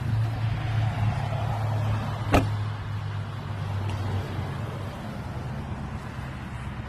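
Steady low mechanical hum that fades about four seconds in, with one sharp click a little over two seconds in.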